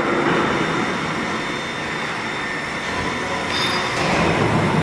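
VMC650 vertical machining center milling behind its closed doors, with flood coolant spraying inside the enclosure: a steady dense wash of noise with a few thin steady whining tones over it.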